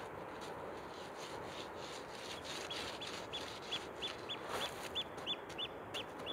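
A bird calling in a quick series of short, high piping notes, about three a second, beginning a couple of seconds in, over the steady distant rumble of a waterfall. A few sharp clicks of a walking pole and footsteps on stones.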